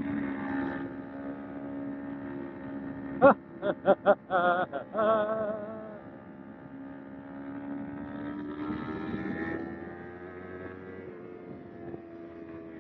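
Kawasaki Ninja 250R's parallel-twin engine running under way. Its pitch drops at first, then rises and falls again. A quick run of short, loud blasts comes about three to six seconds in.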